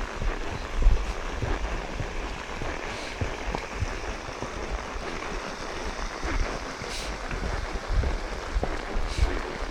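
Horses walking on a forest path deep in dry fallen leaves: a steady rustle and scuffle of hooves through the leaves, with irregular low bumps from movement and wind on the microphone.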